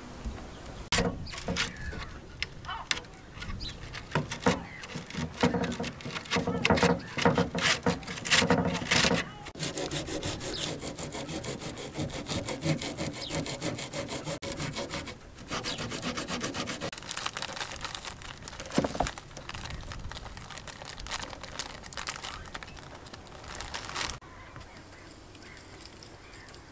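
Hand strokes of a tool scraping and rubbing a weathered teak deck grating, cleaning grime and mould off the old wood. The strokes come in quick runs and stop a couple of seconds before the end.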